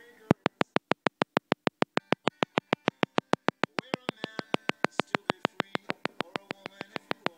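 Rapid, evenly spaced clicking, about seven clicks a second, from the laptop's audio playback, with Spotify music faint beneath it from about halfway in.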